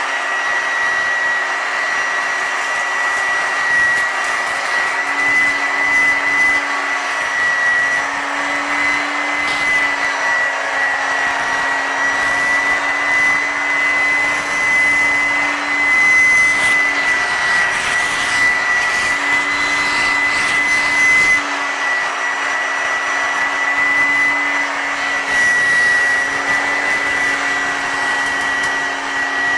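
1981 Hoover Junior U1012 upright vacuum cleaner running steadily: a high motor whine over rushing air, with a lower tone whose pitch wavers slightly.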